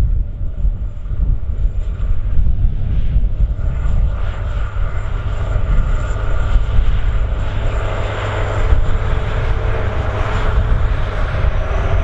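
Diesel engine of a TerraGator 3244 six-wheeled self-propelled slurry tanker running steadily while it works the field injecting slurry. It is a deep rumble with an engine drone that grows louder from about halfway through as the machine comes closer.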